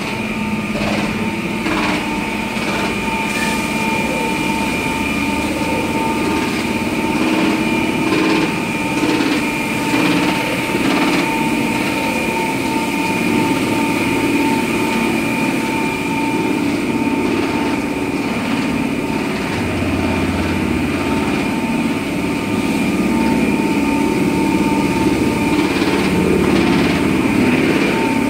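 Fiber cement board processing machine running: its electric motors and rollers give a steady mechanical hum with a constant high whine, with occasional light knocks.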